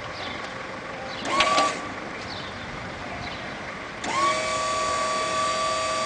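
Electric forklift motor giving a short whine about a second and a half in, then starting up about four seconds in and running with a steady high-pitched whine.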